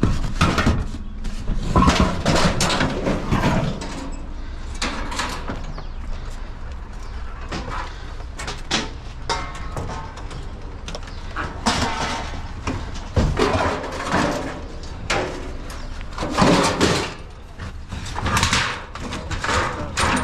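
Irregular knocks, scrapes and rattles of scrap metal being moved about and loaded.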